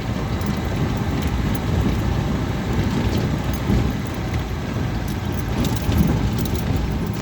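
A motor vehicle driving over a rough off-road track: a steady low engine and road rumble with frequent light rattles and clicks.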